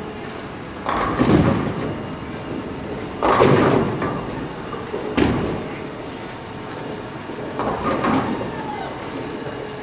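Bowling alley hall sounds: about four loud, echoing thuds and crashes, with quieter knocking between them, typical of balls and pins striking on the lanes.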